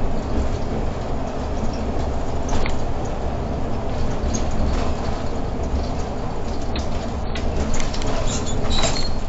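Irisbus Crossway LE 12M bus driving, heard from inside the driver's cab: a steady low engine and road rumble with scattered rattles and clicks.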